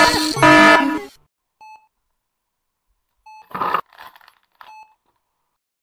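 Short electronic beeps, evenly spaced about every second and a half. A foil sachet crinkles as it is torn open about halfway through. A loud pitched voice-like sound ends about a second in.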